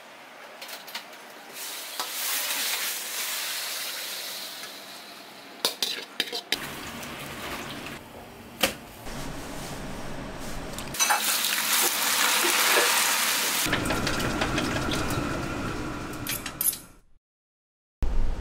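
Food frying and sizzling in a hot pan, with metal utensils clanking and scraping against it. It cuts off suddenly near the end.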